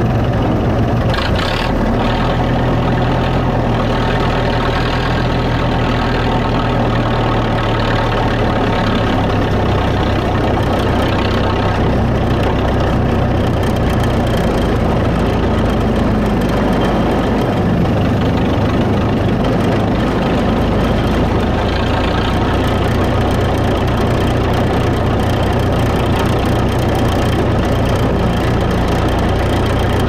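Engine of forest railway locomotive No. 132 running steadily, heard close up from its bonnet.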